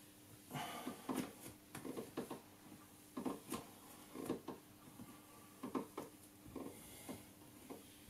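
Irregular soft thumps and shuffles of a person moving through warmup exercises on a floor, one every half second to a second, over a faint steady hum.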